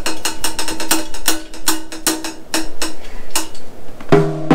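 Drumsticks striking quickly in a long run of light, clicky hits. About four seconds in, a tom of a Pearl Roadshow drum kit is hit and rings.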